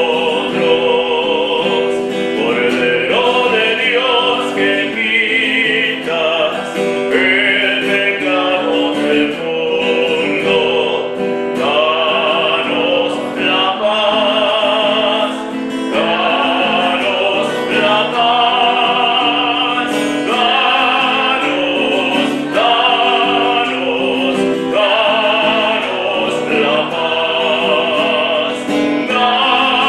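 A congregation singing a church hymn with instrumental accompaniment: continuous sung melody with held notes and vibrato over steady chords.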